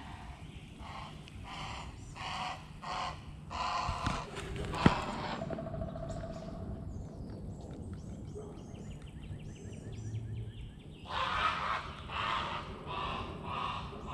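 Great blue heron calling over and over, a bunch of noise, about two calls a second. The calls drop away for a few seconds in the middle and start up again near the end. There is one sharp click about five seconds in.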